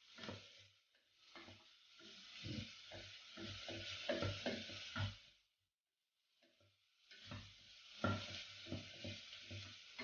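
Chopped onions sizzling in hot ghee in a pan as they are stirred, with repeated short knocks and scrapes of the spatula against the pan. The sizzle drops out for about a second and a half past the middle, then resumes.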